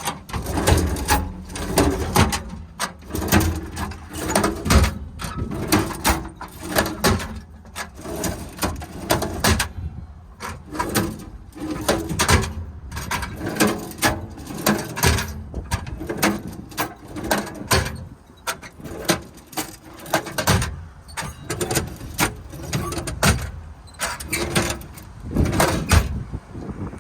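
Metal sliding tool drawers in a truck service body being pulled open and pushed shut again and again: a long run of irregular clanks, rattles and knocks.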